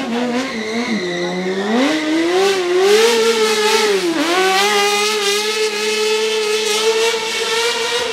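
Racing motorcycle engine revving, its pitch rising and falling several times. About four seconds in it pulls away and then holds a steady high pitch.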